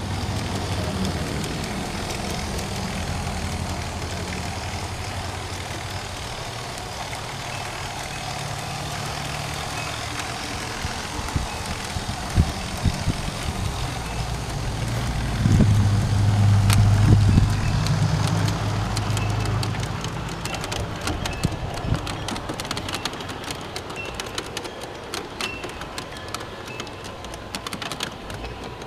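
G-scale model Mikado steam locomotive running along garden railway track, its electric drive humming steadily, loudest about halfway through. Scattered sharp clicks, more frequent in the later part.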